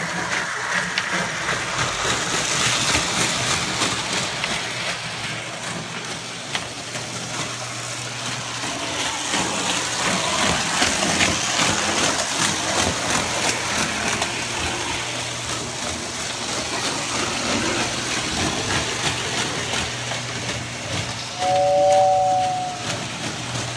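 Lionel prewar 616 Flying Yankee O gauge electric train running on three-rail tinplate track: a steady clattering run over a constant low motor hum. Near the end a two-note toy train whistle sounds once for about a second.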